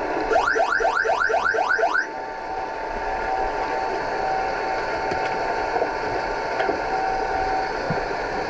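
Underwater hockey referee's electronic underwater siren, heard through the water: a quick run of rising whoops, about five a second, that stops suddenly after about two seconds. This is the signal that stops play.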